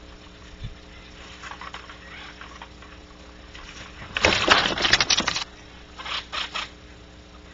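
A bird's harsh, hissing call: one loud rasping burst of just over a second, followed a moment later by two short ones.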